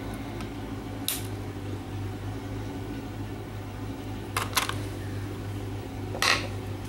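Scissors snipping and small handling clicks around a circuit board: one click about a second in, two quick snips a little past the middle, and a brief rustle near the end. Under them runs a low steady hum from a car engine idling next door.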